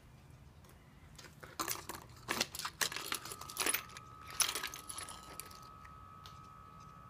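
Keys jangling and clinking in a quick cluster of metallic clicks, with a faint steady high tone starting about three seconds in.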